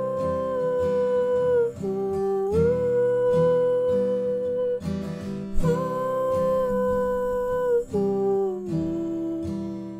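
Strummed acoustic guitar under a wordless hummed vocal line that holds long notes, each about two seconds, stepping down and back up.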